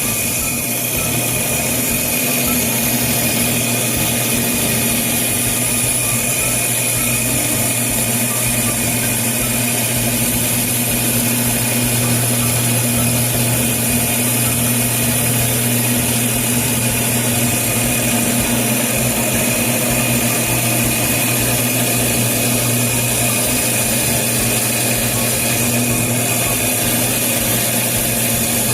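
Water-cooled glass band saw running with a steady motor hum and a high whine.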